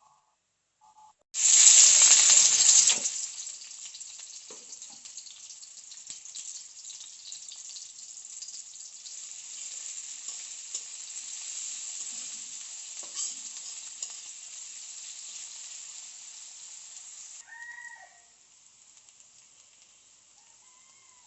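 Food dropped into hot oil in a pan. It sets off a sudden loud sizzle about a second in, which settles after a couple of seconds into a steady frying sizzle and drops away near the end. A short squeak is heard as the sizzle fades.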